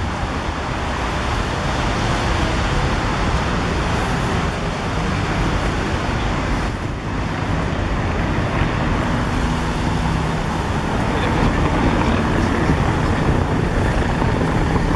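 Steady city road traffic noise: a continuous rumble and hiss of passing vehicles.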